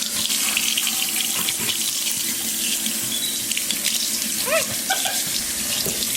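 Tap water running steadily into a bath as the temperature is being set, with a couple of brief high squeaks about four and a half seconds in.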